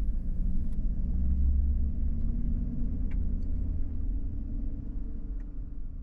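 2011 Chevrolet Silverado 1500's 5.3-litre V8 running with a steady low rumble as the truck rolls slowly, heard from inside the cab, slowly fading toward the end.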